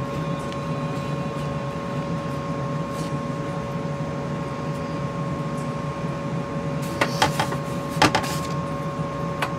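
Steady machine hum, a low drone with two faint steady whines above it. A few light taps come near the end as hands work the dough on a parchment-lined sheet pan.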